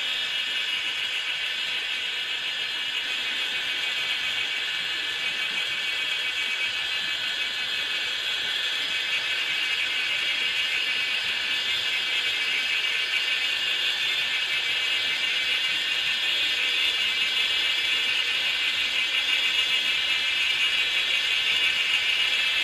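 Steady chorus of insects chirring: a dense, high, rapidly pulsing buzz that grows slightly louder toward the end.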